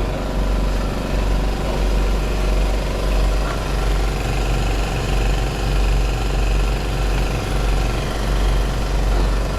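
An engine running steadily close by, a continuous loud rumble with no let-up.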